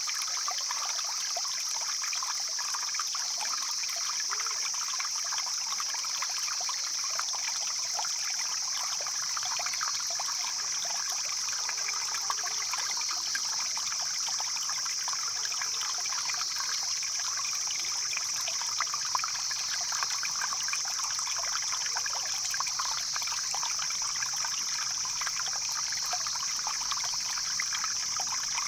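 Mountain stream flowing and babbling steadily over rocks, a continuous trickling and splashing, with a steady high-pitched hiss over it.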